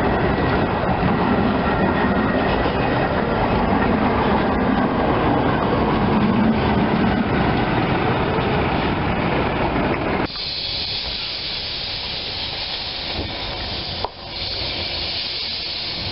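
Narrow-gauge wooden passenger carriages rolling past close by, their wheels giving a steady rumble on the rails. About ten seconds in the sound cuts to a steady hiss of steam from the narrow-gauge steam locomotive.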